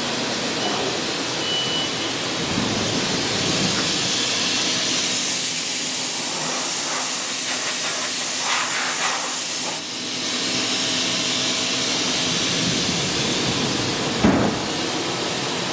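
Compressed-air blow-off hissing steadily as it clears plastic swarf from the part, so that no swarf builds up to wrap around the tool. The hiss briefly dips about ten seconds in, and a short knock comes near the end.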